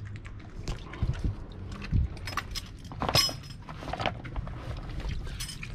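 Diving gear being handled in a sailboat's cockpit: scattered knocks, clicks and rustles, the loudest about three seconds in, over water lapping against the hull.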